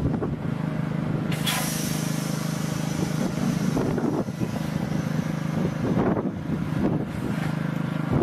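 Vehicle engine idling steadily, a low even hum, with a rushing hiss that comes in about a second and a half in.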